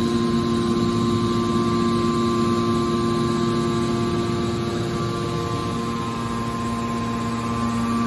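Hydraulic pump unit of a scrap metal baler running: a steady machine hum with several held tones, easing slightly about five seconds in and firming again near the end.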